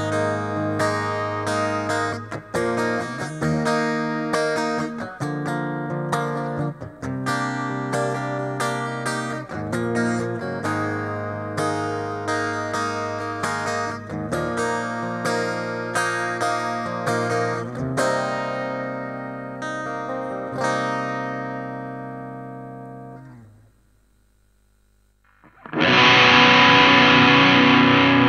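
Guitar played through a Mooer GE 150 Pro multi-effects processor: a run of ringing chords that dies away about 23 seconds in. After a brief pause, a loud distorted patch starts near the end.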